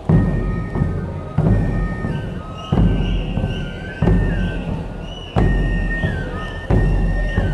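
Festival march music: a drum struck about once every 1.3 seconds, each heavy beat ringing out and fading, under a pito flute playing a simple high tune of held notes that step up and down.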